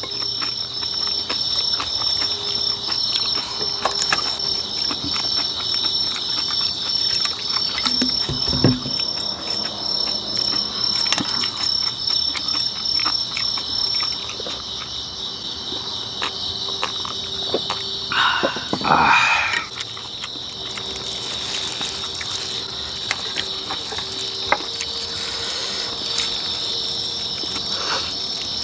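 Crickets chirping in a steady high trill, with one pulsing chirp that drops out about halfway through. Over it come close eating noises: chewing and small clicks of chopsticks and bowls, and a short breathy exhale about two-thirds of the way in.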